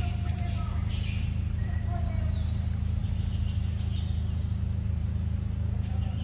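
Steady low hum, with faint bird chirps about halfway through.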